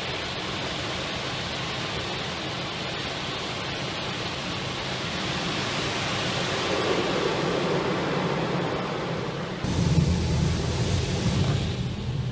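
High-pressure water jets of a touchless (brushless) automatic car wash spraying against the car's windshield and body, heard from inside the cabin as a steady rushing hiss. About ten seconds in the spray suddenly grows louder and deeper.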